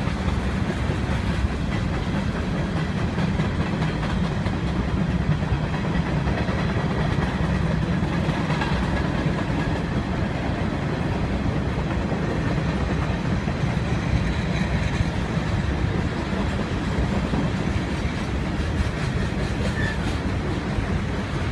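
Freight train cars rolling past, their steel wheels running on the rails with a steady, low-weighted noise that holds level throughout.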